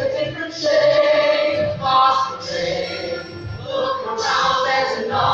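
A mixed group of male and female singers, female voices to the fore, singing together in sustained notes over musical accompaniment.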